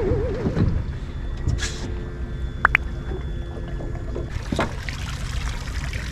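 Water trickling and splashing at a small boat, with a couple of sharp clicks about two and a half seconds in and louder splashing from about four and a half seconds on.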